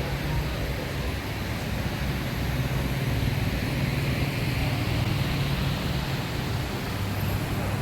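Steady city street traffic noise: a low, constant engine hum under an even wash of noise.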